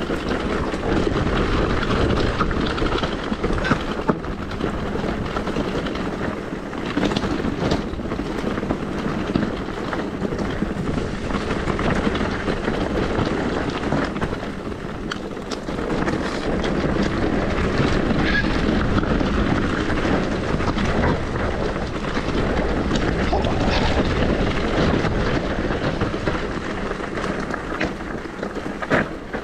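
Electric mountain bike riding downhill on a rough trail: steady rush of wind over the microphone and tyres rolling over the ground, broken by frequent knocks and rattles of the bike over bumps.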